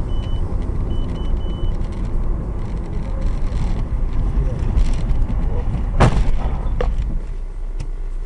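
A car on the road with a steady low engine and road rumble and a few short high beeps in the first two seconds. About six seconds in comes one sharp bang of impact, then a smaller knock, typical of a collision.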